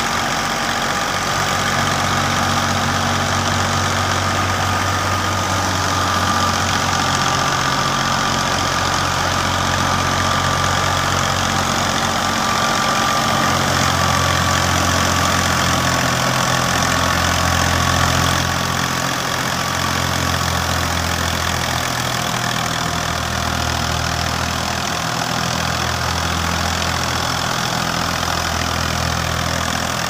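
New Holland 480 tractor's three-cylinder diesel engine running steadily. A thin high whine over it slowly drops in pitch and fades a little over halfway through.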